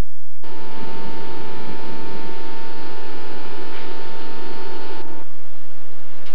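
Steady hum with a whining tone from a standing TGV train's onboard equipment. It starts about half a second in and cuts off sharply about five seconds in.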